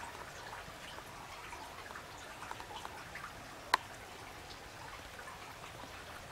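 Water dripping onto wet pavement: a scatter of small irregular drops, with one sharp, louder click about halfway through.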